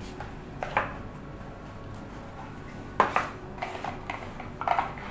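Knocks and light clatter of a smartphone and its box being handled on a desk: a tap under a second in, a sharp knock about three seconds in with a few smaller clatters after it, and another short clatter near the end.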